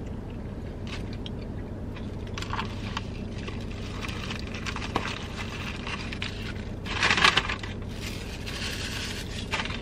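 Aluminium foil sandwich wrapper crinkling and a paper takeout bag rustling, with the loudest rustle about seven seconds in, over a steady low hum.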